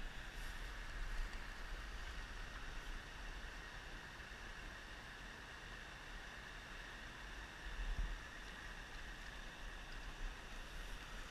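Small creek running steadily over a shallow riffle, with a low wind rumble on the microphone that swells briefly about eight seconds in.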